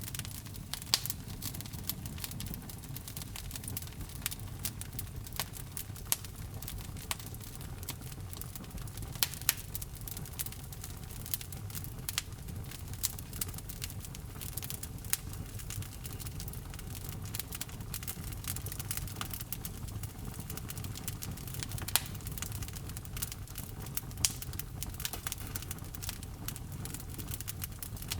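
Wood fire in a fireplace crackling: many irregular sharp pops and snaps, a few of them louder, over a steady low rumble of the flames.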